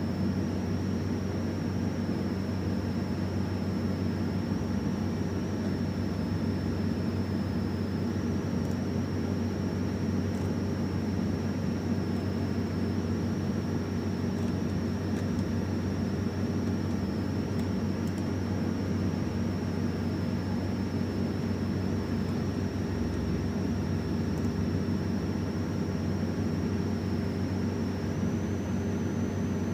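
Steady machine hum and hiss with a constant thin high-pitched whine.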